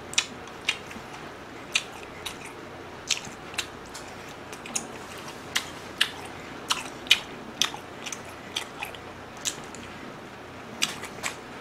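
A person chewing food with the mouth closed: irregular sharp mouth clicks, about one or two a second.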